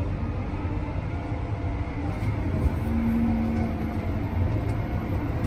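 John Deere 7R330's 9-litre six-cylinder diesel running at low revs, heard from inside the cab as the tractor pulls away slowly. A brief steady hum rises above it about three seconds in.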